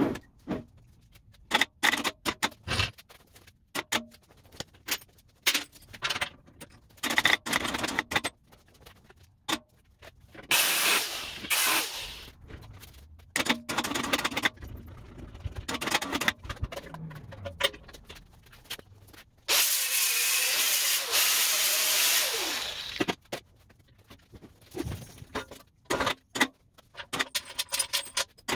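Knocks and clanks of a heavy steel smoker firebox being rigged with a lifting strap and hoisted. Two stretches of steady hissing noise come through, a short one about ten seconds in and a longer one of about three seconds later on.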